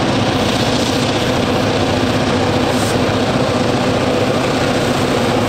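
Diesel locomotives hauling a freight train, their engines running with a steady, loud drone.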